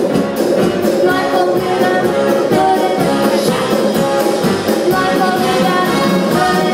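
Big band playing live with a singer, horns and a steady beat.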